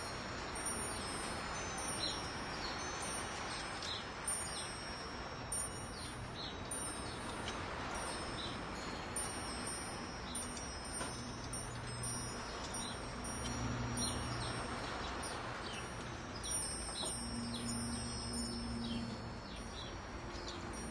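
Metal wind chime tinkling over and over, its high ringing notes overlapping, over a steady hiss of wind, with short bird chirps scattered throughout. A low hum comes in about halfway.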